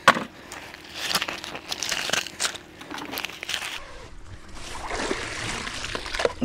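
Close handling noise: an irregular run of crunching, crinkling clicks and rustles. About four seconds in, after a cut, it changes to a steadier rustling hiss as wet magnet-fishing rope is handled.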